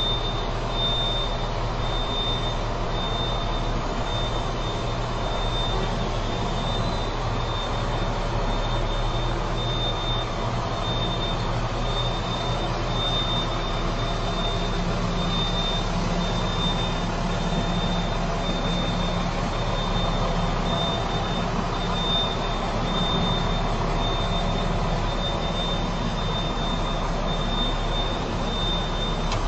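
Truck's diesel engine running steadily at low speed, heard from the cab as the truck creeps forward, with a thin high whine over the low drone.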